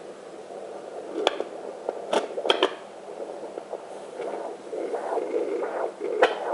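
A handheld fetal Doppler's speaker playing a fast, rhythmic whooshing pulse, about two beats a second (the monitor reads around 116 to 118 beats a minute): blood flowing through the mother's own artery beside the hip bone, not the baby's heartbeat. A few sharp clicks cut through it.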